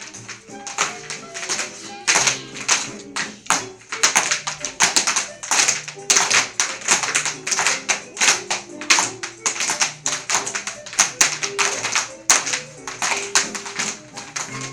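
Children's tap shoes clattering unevenly on a wooden floor, many sharp irregular clicks, over recorded dance music playing.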